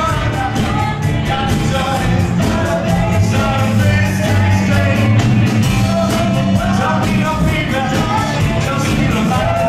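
Live band playing a song with sung vocals over a strong bass line and a steady drum beat, amplified through PA speakers.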